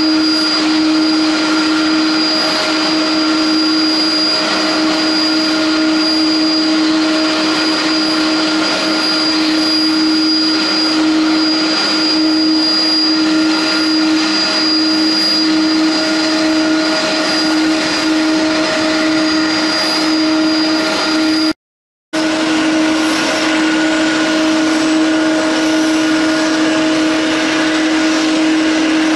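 Jet airliner turbine noise: a steady roar with a high, unchanging whine. It breaks off completely for about half a second roughly three-quarters of the way through.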